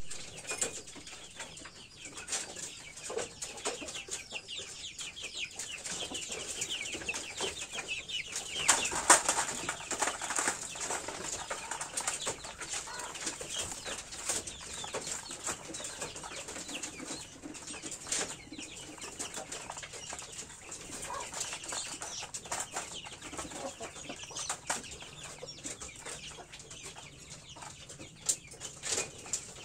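Domestic chickens with chicks clucking and peeping, with wing flutters and scattered sharp clicks; the calls are loudest about nine seconds in, and a few sharper clicks come near the end.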